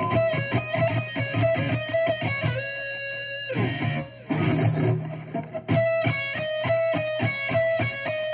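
Electric guitar playing a fast single-note metal lick in sextuplets on the D Aeolian scale, every note alternate-picked up and down, with a short break about four seconds in.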